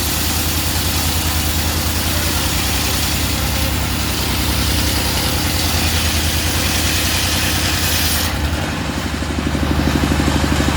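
Engine-driven circular sawmill running steadily while its blade cuts through an old teak log with a high hiss. About eight seconds in the cutting hiss stops and the engine runs on alone, its pulsing a little louder.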